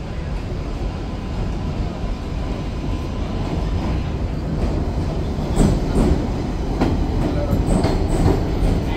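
R188 subway train pulling into an elevated station, its rumble growing louder as it nears. From about halfway, the wheels click sharply on the rails as the cars come alongside.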